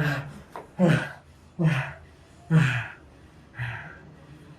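A person breathing hard in short voiced gasps, about one a second, each dropping in pitch.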